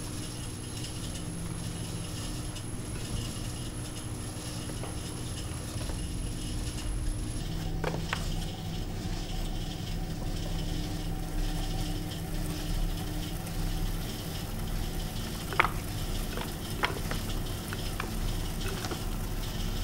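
Electric potter's wheel humming steadily while a wire loop trimming tool shaves leather-hard clay from the foot of an upturned pot, a soft continuous scraping. A few sharp clicks from the tool come in the second half.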